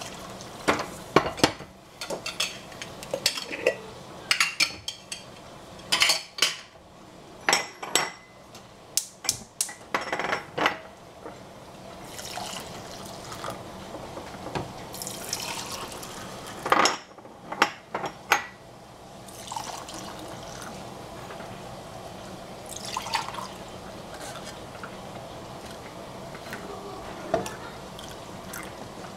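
Milk being poured from a stainless steel saucepan into glass jars to fill them for homemade yogurt, with the liquid running in and many sharp clinks and knocks of the pan and glass jars, thickest in the first twenty seconds or so.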